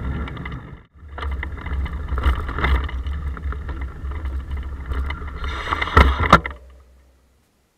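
Riding noise picked up by a bicycle-mounted action camera in its case: a steady low rumble of road vibration with many small rattles and clicks. The sound drops out briefly about a second in, two sharp knocks come near the six-second mark, and the sound then fades to silence.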